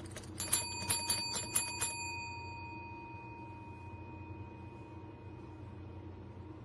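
A small metal bell struck about six times in quick succession, then ringing on and slowly fading for several seconds.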